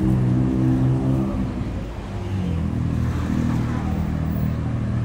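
A tuk-tuk's engine running as it drives past close by on the street, its engine note shifting in pitch a couple of times, over general street traffic noise.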